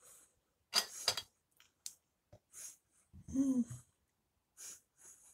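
A person eating a pastry tartlet: chewing and breathing through the nose in short hissy bursts, with a crackly burst about a second in. About three seconds in comes a short hummed 'mm' that rises and falls in pitch.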